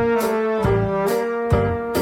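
Background music: sustained melodic notes over a steady beat of about two beats a second.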